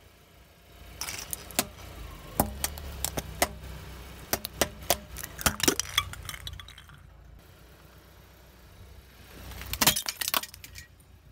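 Car tyre rolling over a row of small plastic LED light bulbs: a string of sharp cracks and pops as the coloured plastic domes split off, with pieces clinking and clattering on the asphalt over a low rumble of the tyre. A second short burst of cracks comes near the end.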